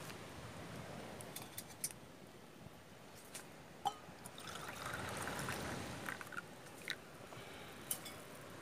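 Dark liquid poured from a pot into a stainless steel mug, a splashing pour of about two seconds near the middle, over the sharp crackles and pops of a wood campfire.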